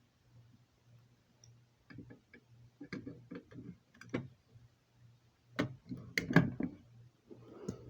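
Irregular clicks and knocks of a key being worked in a fire alarm pull station to activate it. The knocks are loudest a little after six seconds in, over a faint steady low hum.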